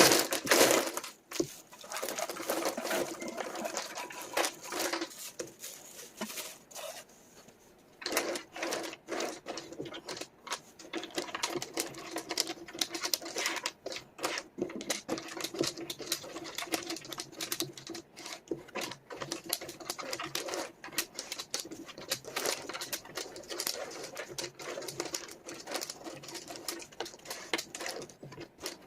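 Wooden jigsaw puzzle pieces clicking and rattling in quick, dense succession as they are handled and sorted on a table, with a short lull about seven seconds in.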